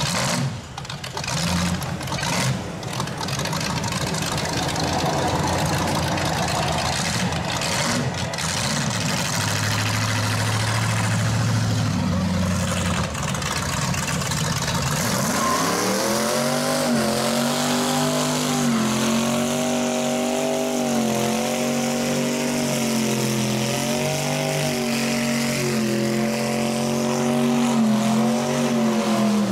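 Engines of passing street traffic, then about halfway through a rat rod's engine revs up quickly and holds high, wavering revs through a burnout, its rear tyres spinning on the pavement.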